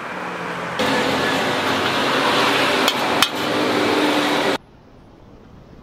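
Cooking at a wok: a steady frying hiss with two sharp metal clinks, like a ladle on the wok, about three seconds in. It cuts off suddenly about a second before the end, leaving faint street background noise.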